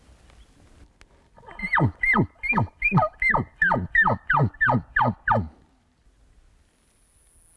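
Elk call blown through a bugle tube: a quick run of about a dozen grunts, roughly three a second, each dropping steeply in pitch, imitating a bull elk's chuckle.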